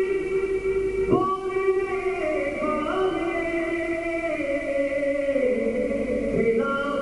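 A man singing a devotional manqabat in long held notes that step and glide from pitch to pitch.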